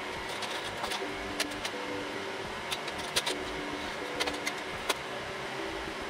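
Sharp plastic and metal clicks of a PCI riser card being seated into an open server chassis, several in a row, over the steady hum of running rack servers with a faint repeating pattern of low tones.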